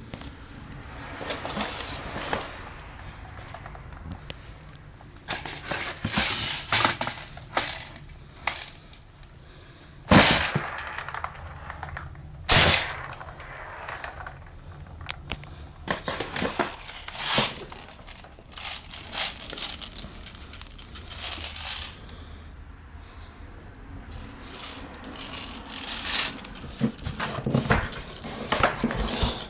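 Tokyo Marui next-generation electric airsoft gun (SCAR-L) firing: sharp single shots mixed with short rapid-fire bursts, in irregular groups with pauses between.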